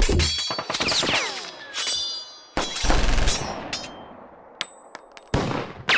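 A run of loud bangs and metallic clangs that ring on after each hit: three heavy hits a few seconds apart, a falling whine about a second in, and a few lighter clinks near the end.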